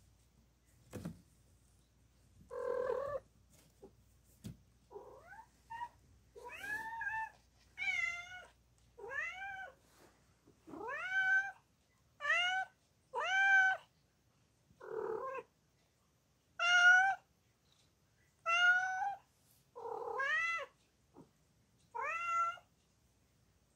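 Calico mother cat close to giving birth, meowing over and over: about a dozen calls, roughly one a second, each rising in pitch, after a few softer sounds at the start.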